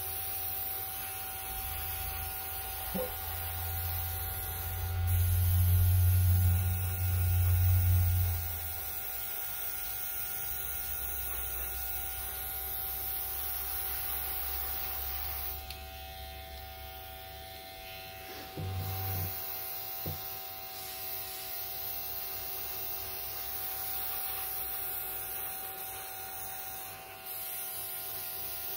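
A small airbrush compressor runs with a steady electric hum, under the hiss of an airbrush spraying mica paint. The low hum swells louder for a few seconds about five seconds in. The hiss drops out for about three seconds a little past halfway.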